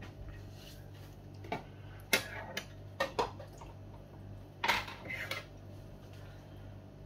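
Dishes and cutlery clinking and knocking: a handful of sharp clatters, loudest about two seconds and five seconds in, over a steady low hum.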